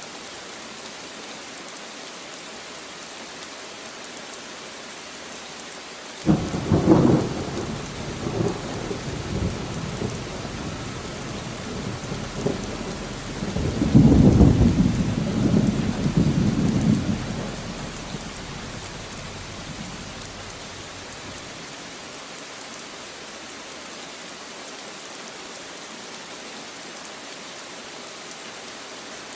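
Steady rain falling, with a sudden clap of thunder about a fifth of the way in. The thunder rumbles on, swells again louder around the middle, then dies away, leaving the rain alone.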